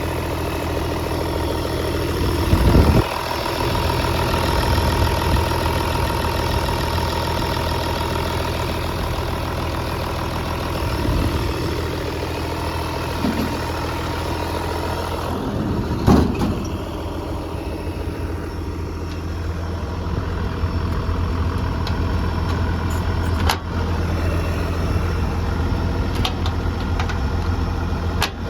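John Deere 200 LC hydraulic excavator's diesel engine idling steadily, with a few short knocks and thumps on the machine, the loudest about 3 and 16 seconds in.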